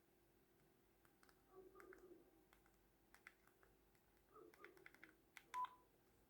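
Faint taps and clicks on a mobile phone with soft keypad beeps, as a number is dialled; one short beep a little over five seconds in is the loudest.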